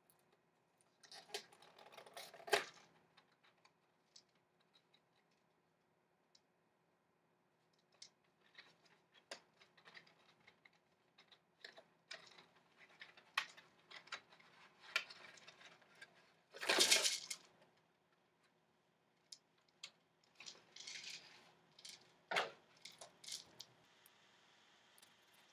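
Cardboard box being opened and a foil-wrapped chocolate Easter egg taken out. It gives intermittent rustling and crinkling with scattered light clicks. The loudest rustle lasts about a second, around two-thirds of the way through.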